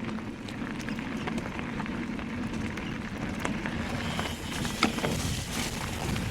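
Specialized Turbo Kenevo SL 2 electric mountain bike ridden on a forest trail: tyres rolling over dirt with a steady low hum under it and scattered clicks and knocks from the bike, one sharper knock about five seconds in.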